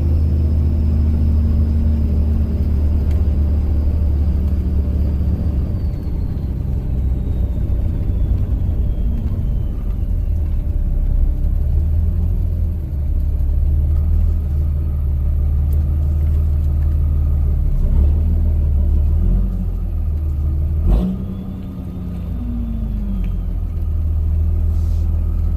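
5.9 Cummins turbo-diesel straight-six in a Ram 3500 driving under way, with a steady low drone through its 5-inch exhaust turned down before the rear axle. The turbo whistle slides steadily down in pitch over the first ten seconds. About 21 seconds in there is a sharp click and the level briefly drops, then the turbo whistle rises and falls again.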